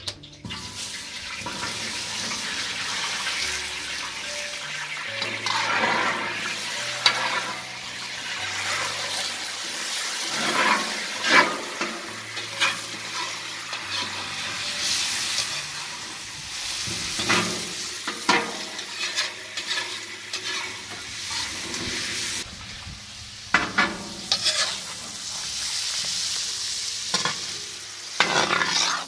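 Pieces of meat sizzling in hot oil in a large aluminium cauldron, with a metal spatula scraping and knocking against the pan as they are stirred. The scrapes come in irregular clusters over the steady sizzle.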